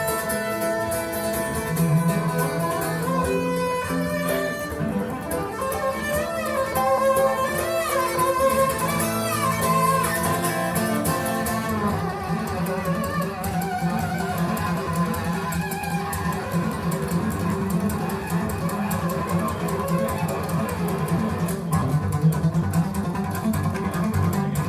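Recorded acoustic string music played back over hi-fi loudspeakers: a bowed melody with wavering vibrato over plucked strings and a steady low bass line.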